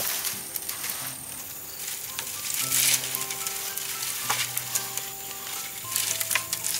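Dry bean vines and bamboo stakes rustling and crackling as they are pulled out and gathered up, with surges about three and six seconds in. Soft instrumental background music of held notes plays underneath.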